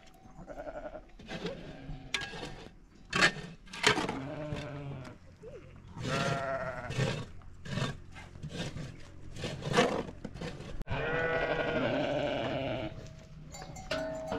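Sheep in a flock bleating, many calls in quick succession, with one long bleat of about two seconds near the end.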